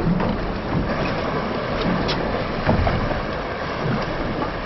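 Steady wind noise buffeting the microphone over the wash of the sea around a small boat.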